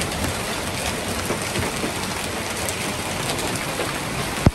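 Hailstorm: hail falling steadily in a dense patter of small ticks on the ground. A single sharp thump near the end.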